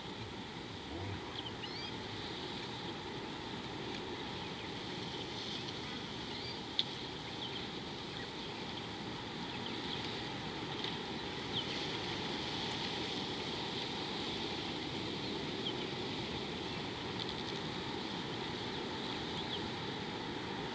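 Steady outdoor ambience at a waterhole: a low rush of wind with a steady high hiss, and scattered faint short high chirps. A single sharp tick about seven seconds in.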